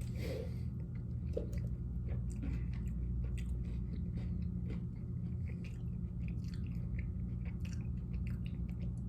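A person chewing garlic bread with the mouth close to the microphone: many small, irregular crunching clicks.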